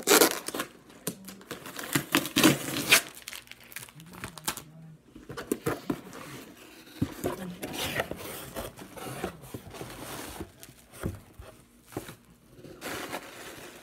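Cardboard shipping box being torn open by hand: packing tape ripping and cardboard flaps tearing and scraping, loudest in the first three seconds, then softer crinkling and rustling as the flaps are pulled back and the contents handled.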